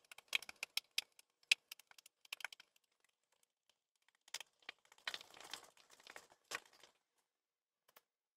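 Spatula stirring a thick peel-off mask paste in a glass bowl: a quick run of sharp clicks and taps against the glass, then after a pause a longer scraping, squelching stretch as the paste is worked and scooped.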